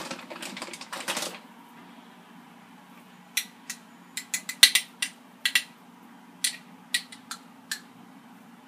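A brief rustle, then a run of small sharp clicks and clinks with one louder knock near the middle, from a glass jar of pizza sauce and a spoon being handled on a kitchen counter. A faint low hum runs underneath.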